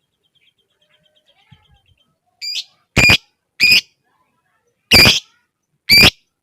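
A lovebird gives a series of loud, shrill, short calls about a second apart, after a faint, fast ticking in the first two seconds.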